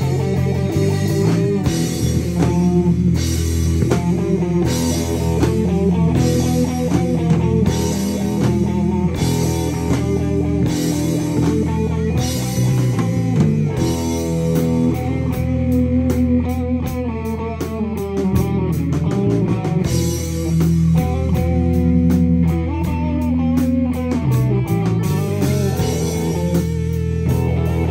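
Live rock band playing an instrumental: two electric guitars and an electric bass through small amps, over a drum kit keeping a steady beat.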